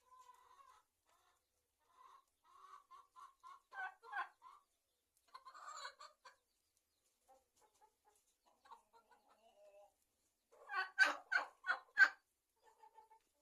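Chickens clucking in short repeated calls, with a louder run of about five sharp calls near the end.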